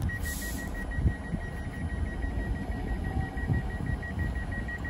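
Rapid, even beeping on one high tone from a Northern Class 331 electric train standing at the platform, of the kind a train's door alarm gives. A short hiss of air comes at the very start, over a low rumble.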